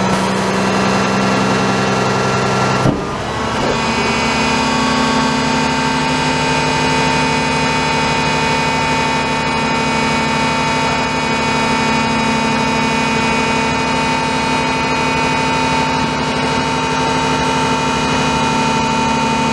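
Garbage truck's diesel engine running steadily, with a steady high whine over it. A sharp click comes about three seconds in, after which the engine's tone changes.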